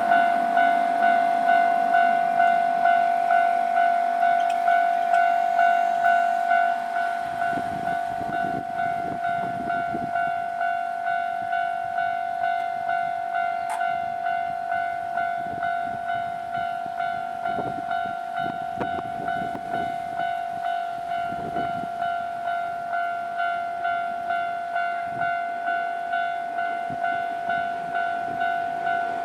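Japanese level-crossing warning bell ringing in a steady, evenly repeated electronic clang, about one and a half to two strokes a second. About seven seconds in the bell grows quieter as the rumble and wheel clatter of a passing train set in underneath it.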